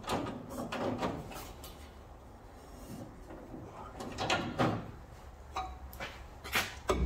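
Scattered metallic clicks, clinks and knocks as a metal bracket and its bolts are handled and fitted by hand against a truck's frame, with a few clustered in the first second and a half and more from about four seconds in.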